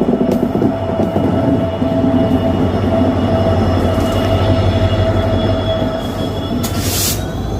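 Train passing close by: wagons rumble over the rails while the wheels squeal with steady high tones. A short hiss comes near the end.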